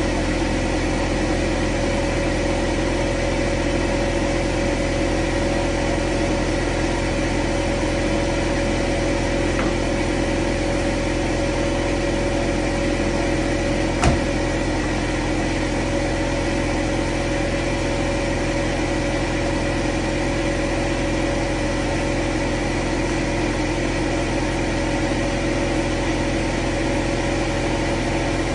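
A steady mechanical hum that never changes, with one sharp click about halfway through.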